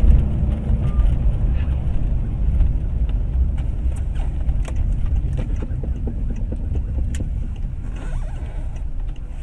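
Car running on the road, heard from inside the cabin as a steady low rumble of engine and tyres, with scattered small clicks and knocks, easing off slightly near the end.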